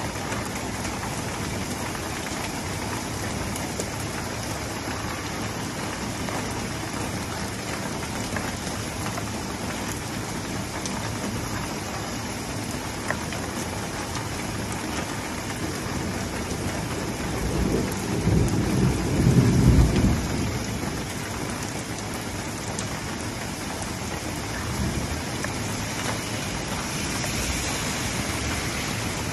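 Steady rain falling on a street and pavement, with a low roll of thunder about 18 seconds in that swells and fades over some three seconds. Near the end a car's tyres hiss past on the wet road.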